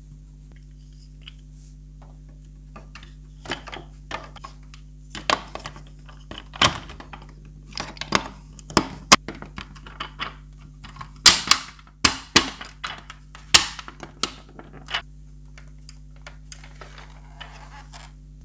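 A run of irregular sharp clicks and knocks, like hard plastic toy parts being handled, snapped and set down, over a steady low hum, with quieter rustling near the end.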